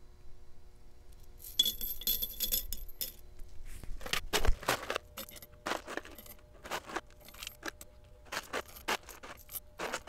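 Pre-1982 copper pennies jingling and clinking as they are dropped by the handful into an electric melting furnace's crucible: a dense jingle about two seconds in, then a run of separate clinks.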